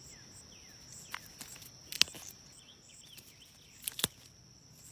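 A steady high insect trill, with a few sharp snaps as shelling pea pods are picked off the vines. The loudest snap comes about two seconds in, and two more come close together near the end.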